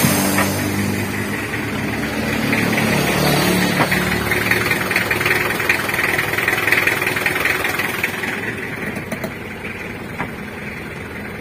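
Mitsubishi L300 diesel engine idling steadily with a newly fitted clutch disc, louder for a few seconds in the middle.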